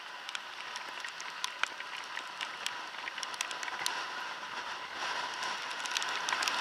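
Rain spattering on the camera, irregular sharp taps of raindrops over a steady hiss of wind and wet road while riding, slowly growing louder.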